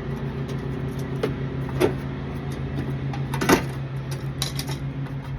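Several sharp clicks and knocks as the nut is worked off an air-conditioner fan blade, over a steady low mechanical hum.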